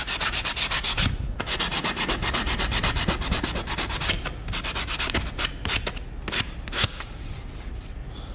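Sandpaper rubbed by hand over a wooden picture frame in fast back-and-forth strokes, sanding off dried wood filler under firm pressure. The strokes come thick and fast at first, thin out after about four seconds, and fade near the end.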